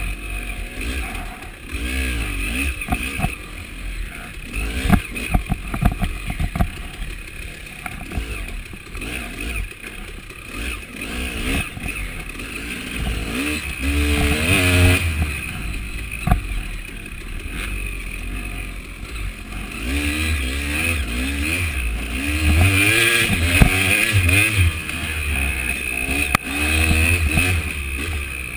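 KTM 300 two-stroke dirt bike engine heard from on board, revs rising and falling as the rider throttles on and off along a rough trail, with strong climbs in revs about halfway through and again near the end. Occasional knocks and rattles from the bike over bumps.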